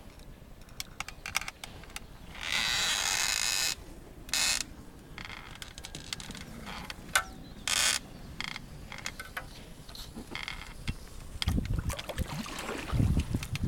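Oars of a small rowing boat creaking and clicking in their worn oarlocks as it is rowed, with a few short rushes of water from the strokes. A low buffeting comes in near the end.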